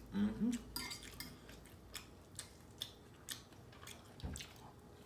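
Light, scattered clicks of cutlery against a plate, roughly two a second, with a short hum from the eater just after the start.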